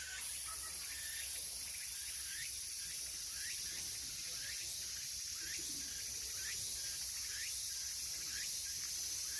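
Cicadas singing, a steady dense high-pitched drone. Over it a short rising call repeats about twice a second.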